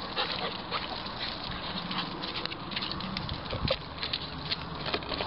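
Ice of a frozen puddle clicking, tapping and crackling irregularly as dogs walk on it and nose and paw at it.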